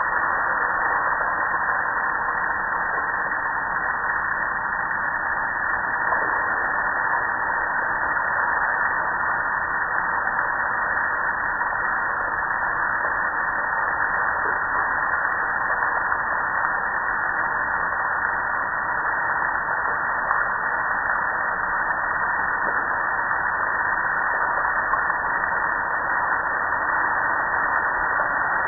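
Steady rushing hiss of water spraying onto a soapy gas grill, running unbroken with no distinct knocks or clicks.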